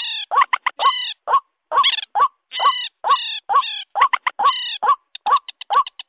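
Lure recording combining white-breasted waterhen and common moorhen calls: a harsh call repeated about twice a second, with short runs of fast, high clicking notes in between and a dense run of clicks near the end.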